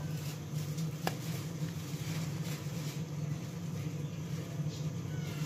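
Cake batter scraped from a bowl into a foil tray with a whisk: faint soft scraping over a low steady hum.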